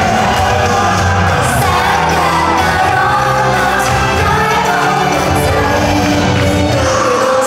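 Live pop song performed by a Japanese idol group: sung vocals over loud, continuous music with a steady beat.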